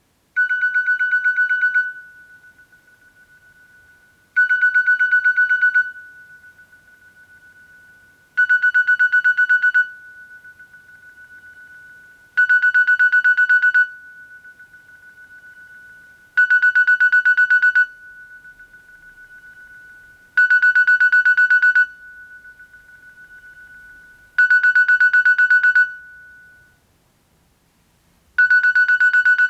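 Nokia 3230 ringtone: a rapidly pulsing electronic ring at one steady pitch, about a second and a half long, repeating every four seconds, with a faint tone carrying on between rings. There are eight rings in all.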